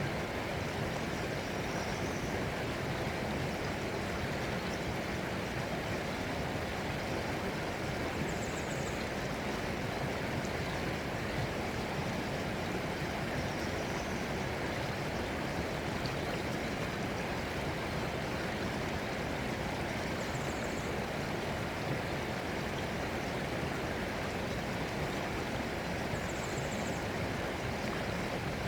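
Flowing water rushing steadily, with a faint short high chirp every five or six seconds.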